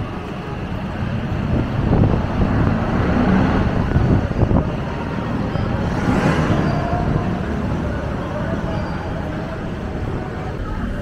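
Road traffic: motor vehicles running and passing by. The noise swells in the middle, as one vehicle goes by close about six seconds in.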